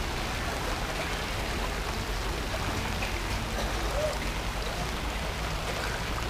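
Steady hiss of rain falling on a flooded street.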